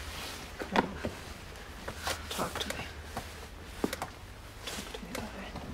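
A woman crying softly: short sniffles and breathy sobs that come and go, over a low steady hum.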